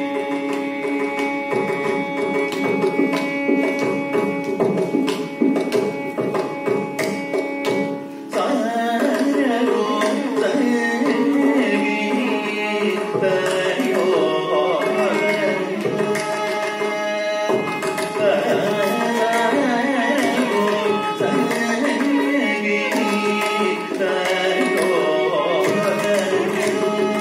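Carnatic concert music in raga Darbar: male voice and violin with mridangam strokes throughout. Held notes for about the first eight seconds, then quicker moving phrases.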